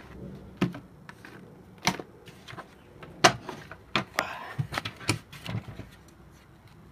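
Irregular sharp clicks and knocks of hard items being handled and set down, with a brief rustle about four seconds in.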